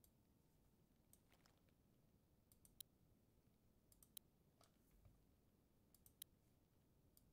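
Faint computer mouse clicks, about a dozen short, sharp clicks in small groups of two or three, over near silence.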